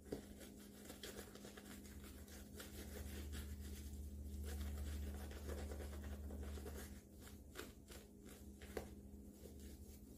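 Shaving brush scrubbing lather onto the face and neck: faint, soft, rapid bristle strokes over a low steady hum.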